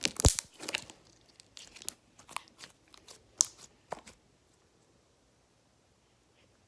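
Glossy slime being squished and stretched by hand, giving irregular sticky clicks and small pops from its air bubbles for about four seconds, then going quiet.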